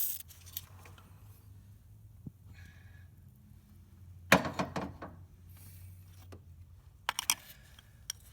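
Scattered metallic clicks and knocks of hand tools working a seized exhaust manifold bolt, with a louder clatter about four seconds in and a quick run of clicks near the end.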